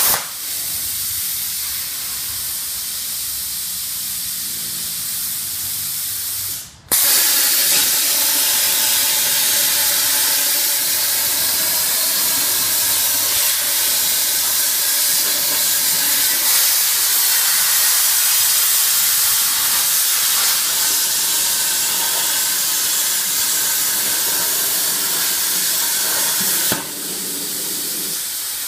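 CNC plasma cutter's torch hissing during a test run. A loud hiss drops to a quieter one just after the start and breaks off for a moment about seven seconds in. The loud hiss then comes back for about twenty seconds and falls to the quieter level near the end.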